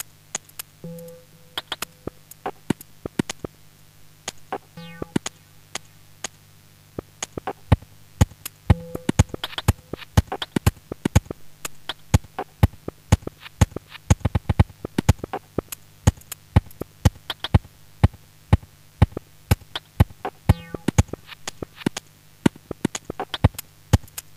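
Minimal electronic music: sparse, irregular synthetic clicks and ticks over a steady low synth drone, with a few short tones. The clicks grow denser about a third of the way in.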